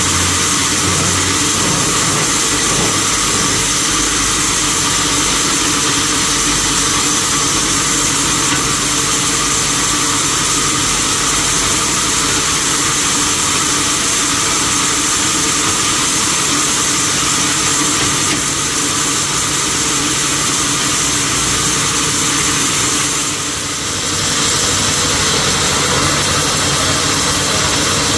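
Sawmill machinery running steadily, a constant loud mechanical noise with a hum of steady tones, dipping briefly about three-quarters of the way through.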